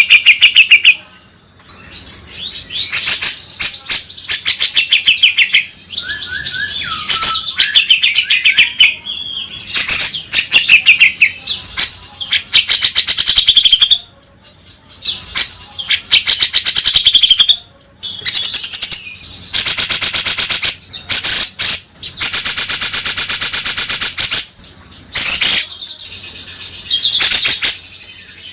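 Grey-cheeked bulbul (cucak jenggot) calling loudly in long runs of rapid, harsh chattering notes, phrase after phrase with short pauses between.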